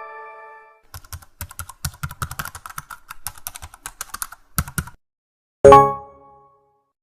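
Computer keyboard typing sound effect: rapid, irregular key clicks for about four seconds, ending with two louder key strikes. A single loud hit with a brief ringing tone follows about a second later.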